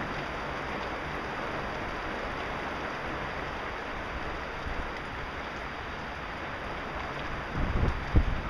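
Heavy rain pouring steadily in a thunderstorm. Near the end, gusts of wind buffet the microphone with loud, irregular low rumbles.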